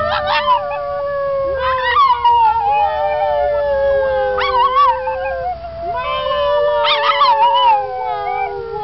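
A pug howling: four long howls that start about every two to three seconds, each wavering in pitch and then sliding down, over drawn-out steady howling tones.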